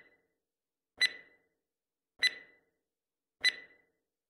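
Countdown timer sound effect ticking: three short, slightly ringing ticks a little over a second apart, marking the seconds left to answer a quiz question.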